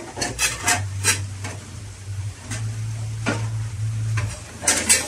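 Dishes and kitchenware clinking and knocking in a plastic dish rack as someone rummages through its lower shelves: a scatter of sharp clicks and knocks, with a cluster of them near the end.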